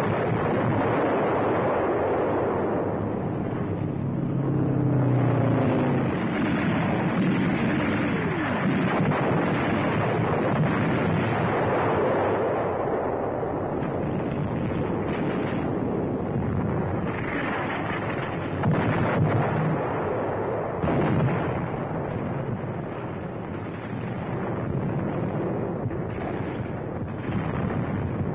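Battle soundtrack of artillery fire and shell explosions: a steady din of gunfire, with two sharper, louder blasts about two-thirds of the way through.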